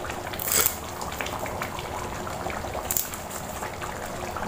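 Thick chicken curry gravy bubbling in a wide metal pan, a steady simmer of many small pops. Two brief hisses stand out, about half a second in and about three seconds in.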